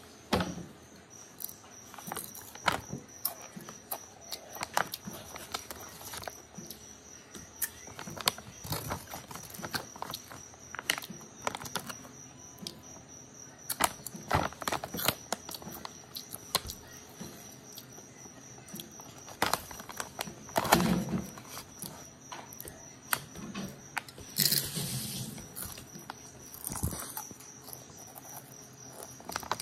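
Chips being chewed close to the microphone: irregular crisp crunches with pauses between bites, a few louder clusters about two-thirds of the way through.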